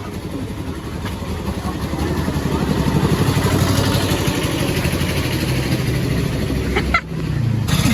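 A motor vehicle's engine running with a steady low hum, growing louder about three seconds in, then cut off sharply near the end.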